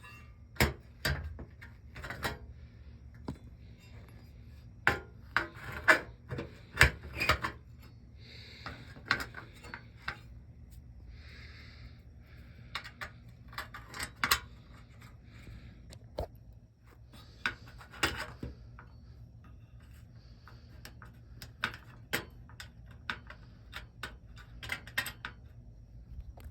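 Irregular knocks, clicks and light clanks of metal dishwasher door parts and tools being handled, with a few short scraping rubs. A faint steady low hum sits underneath.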